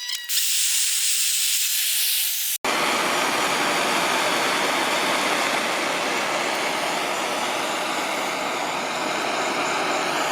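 Propane torch flame hissing steadily while heating a copper pipe joint for soldering. A thinner, higher hiss in the first couple of seconds breaks off sharply, and a fuller, steady hiss follows.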